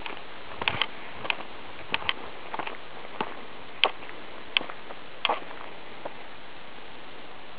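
Footsteps walking up to the archery target: a string of short, sharp, irregular ticks roughly every half second to second, ending about six seconds in, over a steady hiss.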